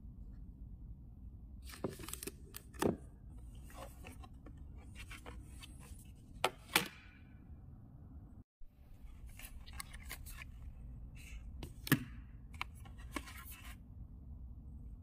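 Unboxing handling: a smartphone, its cardboard box and plastic accessories being picked up and set down, giving scattered taps, clicks and rustles over a low steady hum.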